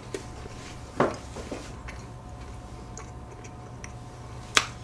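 Close-miked chewing of cheesecake with small wet mouth clicks, a louder click about a second in, and a sharp clink of a metal spoon against a plate near the end, over a steady low hum.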